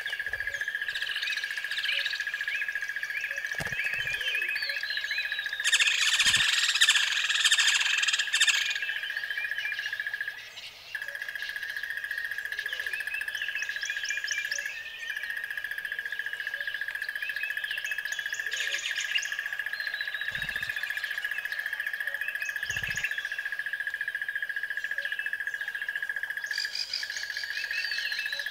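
Birds chirping and calling over a steady high-pitched tone, with a denser, louder flurry of bird calls about six to eight seconds in.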